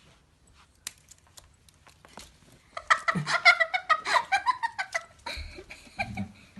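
Kitten crying angrily in a rapid run of high-pitched, wavering cries that fall in pitch at the end, among light clicks.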